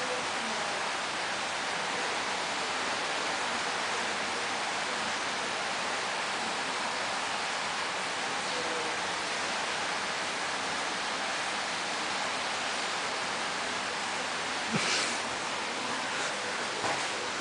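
Steady even hiss with no other sound for most of the time, broken near the end by two brief knocks.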